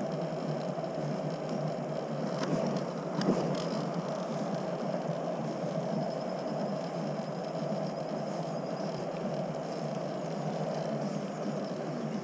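Scooter rolling along a concrete path: a steady noise from the wheels, with two short clicks about two and a half and three seconds in.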